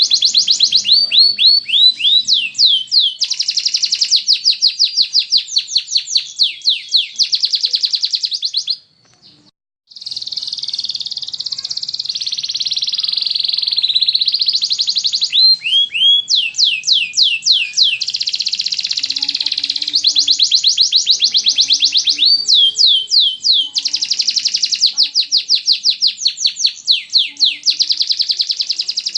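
Canary singing loudly in long runs of fast repeated sweeping notes and trills, with a short break about nine seconds in.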